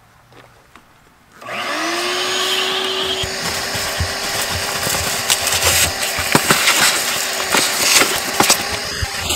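Vacuum cleaner switched on about a second and a half in, its motor whine rising and settling into a steady tone. Scattered clicks and crackles follow as the hose nozzle picks up grit and debris from the car's floor.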